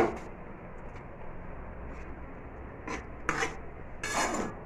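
A sharp click, then a faint low hum, then a few short scraping rubs of kitchen utensils against a pan from about three seconds in.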